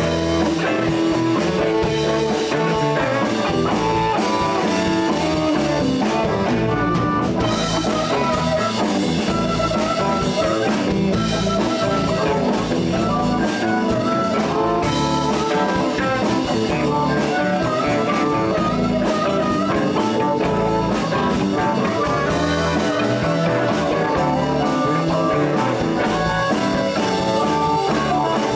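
Live blues band playing an instrumental break between vocal verses: electric guitar, bass and drum kit keeping a steady groove.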